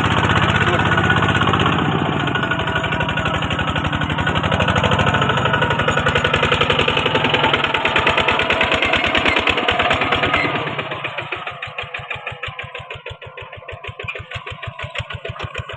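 Single-cylinder diesel engine of a Kubota two-wheel walking tractor running under load with a rapid, even firing beat. About ten seconds in it drops back to a slower, quieter running speed, each firing stroke heard separately.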